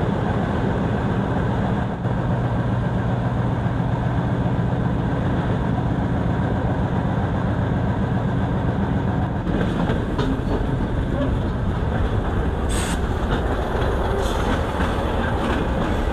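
Sundarban Express passenger train running on the rails, heard from aboard: a steady rumble of wheels and carriage, with a few sharp clicks from about ten seconds in.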